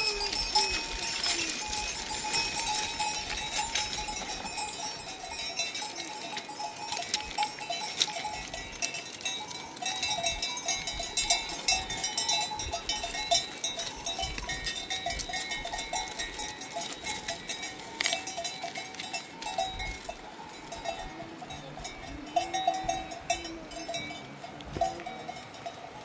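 Many livestock bells on a flock clinking and ringing without pause, with a brief animal call near the end.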